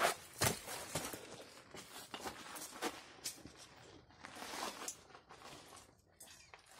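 Rustling, scraping and scuffing handling noise from a phone being carried, with footsteps on dirt and stone as the holder clambers down a bank, in irregular short crackles.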